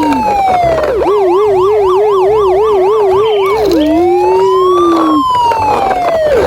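Electronic police siren, switching between a slow rising-and-falling wail and a rapid yelp of about four warbles a second, then back to the slow wail.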